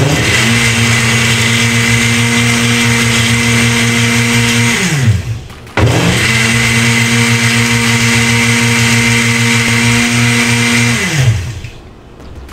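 Countertop blender running in two bursts of about five seconds each with a short pause between, the motor spinning up quickly and winding down at the end of each. It is giving a final blend to a protein shake made with chocolate ice cream and peanut butter.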